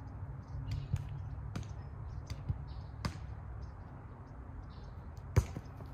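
A volleyball struck hard once, a single sharp smack about five seconds in, after a few faint taps, over a low steady rumble.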